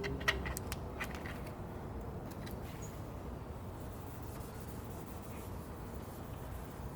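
Adhesive promoter wipe rubbed over a truck body panel: a faint, steady rubbing, with a few light clicks in the first second or so.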